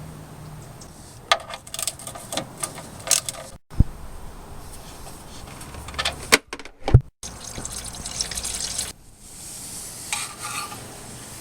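Motor oil pouring, mixed with sharp clicks and knocks of tools and parts, in several short spliced pieces.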